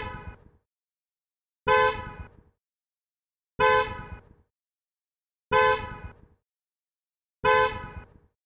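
Car horn giving short, sharp honks about every two seconds, four in a row, each fading out quickly after the blast.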